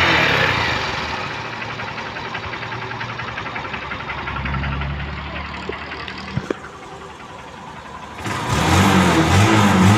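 Honda TMX 150 Supremo's single-cylinder four-stroke engine running at idle with a fast, even beat. There is a sharp click about six and a half seconds in, and background music comes back in near the end.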